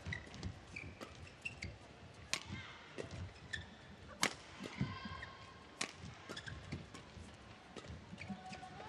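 Badminton rally: sharp cracks of rackets hitting the shuttlecock, roughly every second or so, with short squeaks of court shoes on the floor between the hits.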